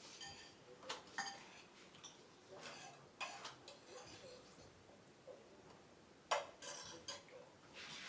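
Spoon clicking and scraping against a plate while eating, in short irregular clicks with a faint ring, the sharpest clink about six seconds in.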